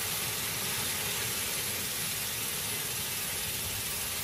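Steady hiss of water spraying from the sprinklers of a center-pivot irrigation system.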